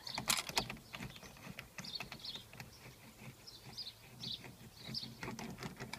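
Scattered light metallic clicks and clinks as a 24 mm socket is handled and fitted to the steering wheel's centre nut, the sharpest clicks in the first second.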